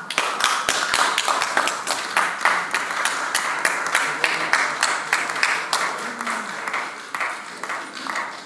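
A crowd applauding, with many hands clapping in a dense, irregular patter.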